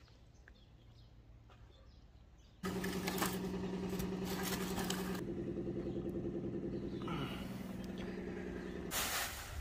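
Near silence, then about a third of the way in a steady engine sound starts abruptly and keeps running, its pitch shifting a few times.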